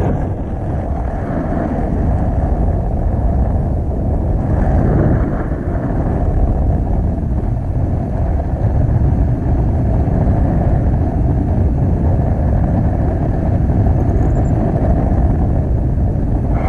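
Wind buffeting the microphone of a selfie-stick camera in tandem paraglider flight: a loud, steady rush of air, mostly low in pitch.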